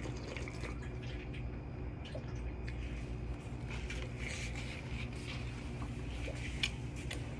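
Scattered small clicks and crackles, like handling and eating noises, over a steady low hum.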